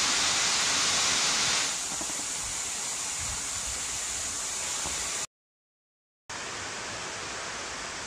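Steady rush of water pouring over the stone ledges of an artificial cascade fountain. It is louder for the first couple of seconds, then settles a little. About five seconds in the sound cuts out completely for about a second, then the rushing comes back.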